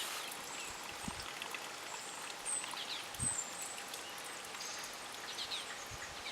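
Steady rush of falling water from waterfalls, with small birds chirping high above it and a couple of soft low thumps.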